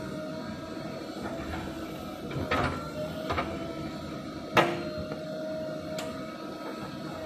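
JCB backhoe loader's diesel engine running steadily with a held whine while the backhoe bucket digs into earth. Four sharp knocks of metal and bucket come at intervals, the loudest a little past halfway.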